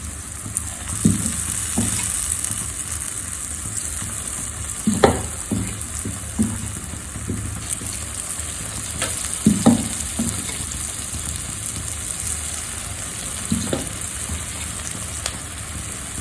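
Paniyaram batter frying in oil in the wells of a paniyaram pan, a steady sizzle. Several short knocks of a utensil against the pan break in now and then.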